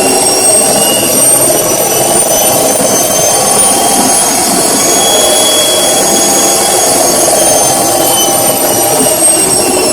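Samsung washing machine in a spin cycle: a loud, steady drum rumble with a high motor whine that climbs slowly and then eases back down.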